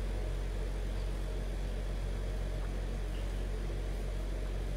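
Steady low hum with a constant background hiss: room tone, with no distinct events.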